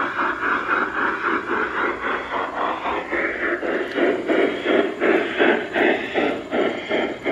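G scale model steam locomotive's sound system chuffing in an even rhythm of about three to four chuffs a second as the engine runs along the track, getting louder about halfway through as it comes close.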